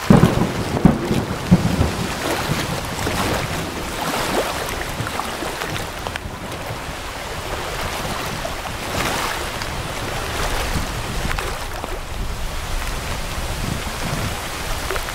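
Gusty wind blowing across the microphone over a steady hiss of rain and choppy water, with the strongest gusts buffeting the microphone in the first couple of seconds.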